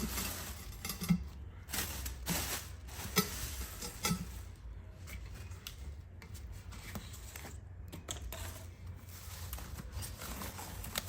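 A plastic packaging bag being pulled off and crinkled around a new alloy wheel: irregular rustles and light knocks, busiest in the first few seconds, then sparser.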